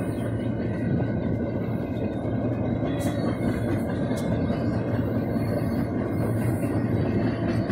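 Double-stack container freight train rolling past: the steady noise of the well cars' wheels running on the rails, with a couple of sharp clicks about three and four seconds in.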